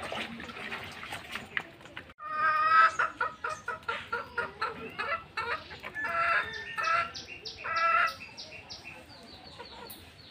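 Domestic deshi chickens clucking and calling: a run of loud, repeated calls starts about two seconds in, and a fast string of short high notes comes near the end.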